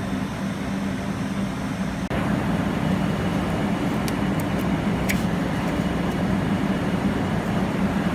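A steady low mechanical hum that steps up slightly about two seconds in, with a few light clicks about four and five seconds in.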